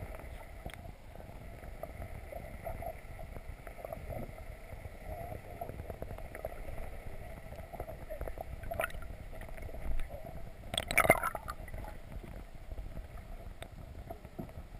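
Muffled water noise picked up by a camera held underwater: a steady low rumble, with a brief louder burst about nine seconds in and a longer, louder one about eleven seconds in.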